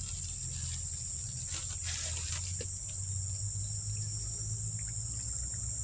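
Steady, high-pitched buzzing drone of insects such as crickets or cicadas, with a low steady rumble underneath.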